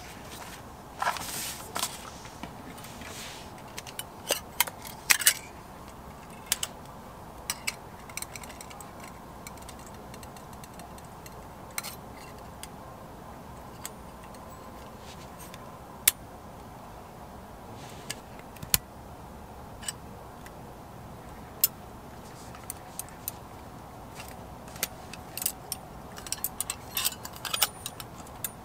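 Light metal clicks and clinks as a SOTO regulator stove's folding wire pot supports and legs are handled and swung open, busiest at the start and again near the end. A brief soft rustle of its cloth pouch about a second in.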